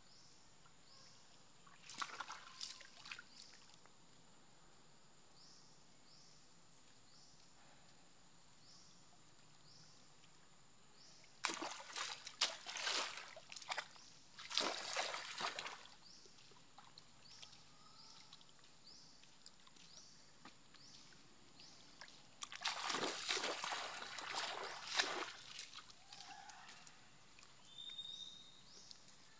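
A monkey splashing and sloshing in a shallow muddy puddle while it forages with its hands and face in the water. The sound comes in three bouts: a short one about two seconds in, the loudest from about eleven to sixteen seconds, and another from about twenty-two to twenty-six seconds.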